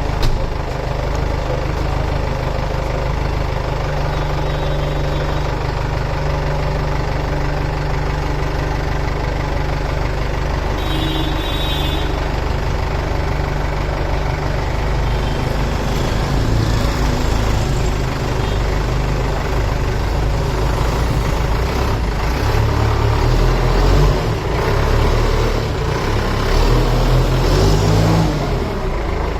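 Heavy diesel engine running steadily, then working more unevenly, with its speed rising and falling through the second half.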